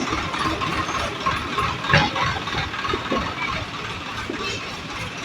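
Continuous mechanical din of repair work at a railway station, with a sharp knock about two seconds in and a lighter one about a second later.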